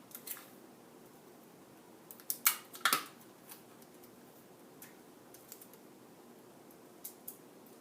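Craft materials being handled: a few short clicks and taps, the loudest about two to three seconds in, then a few fainter ticks.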